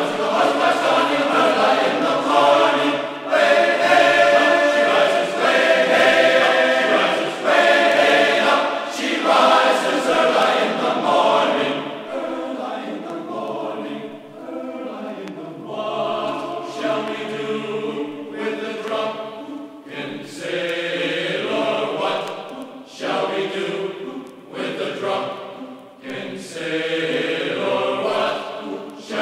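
Background music: a choir singing phrases of held notes that swell and fade.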